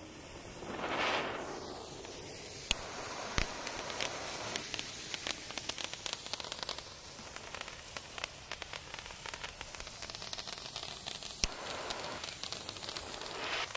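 Patriot stick candle fireworks burning: a steady spraying hiss with a fast scatter of small crackles from the sparks, swelling briefly about a second in.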